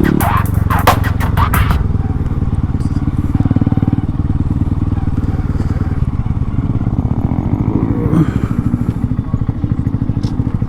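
Honda Grom's small single-cylinder engine running as the bike is ridden, a steady throbbing exhaust note, with a brief rise and fall in revs about eight seconds in. A rapid run of sharp clicks sounds over it in the first couple of seconds.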